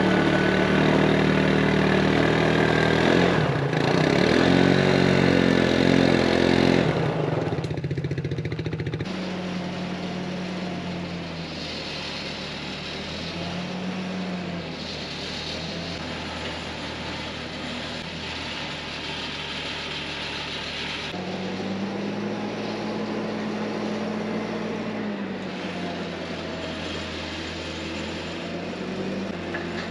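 ATV engine running under load while towing a heavy truck, for about the first seven seconds. Then a quieter engine takes over, its pitch rising and falling in long swells, as a boom machine lifts a truck cab off a trailer.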